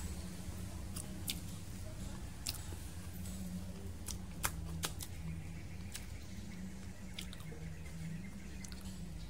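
Eating durian with the fingers: wet lip smacks and sharp mouth clicks of chewing and finger licking, a handful of them scattered at uneven intervals, over a low steady hum.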